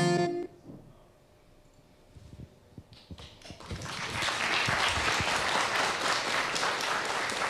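A music track ends about half a second in, and after a short lull a few scattered claps grow into steady audience applause from about four seconds in.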